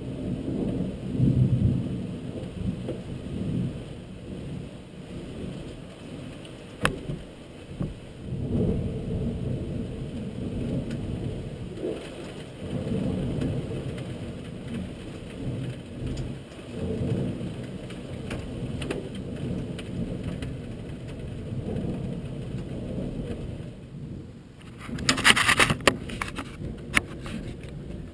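Thunder rumbling in slow rolling waves, with a sharp click about seven seconds in and a loud crackling burst near the end.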